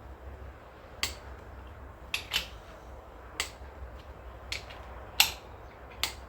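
Click-type torque wrench clicking as it reaches its set torque of 52 newton metres on engine main bearing cap bolts: sharp single clicks about once a second, sometimes two in quick succession, over a low steady hum.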